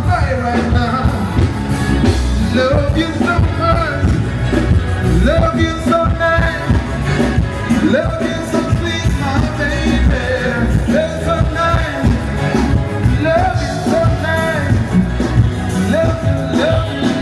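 Loud live band music with singing, continuing without a break.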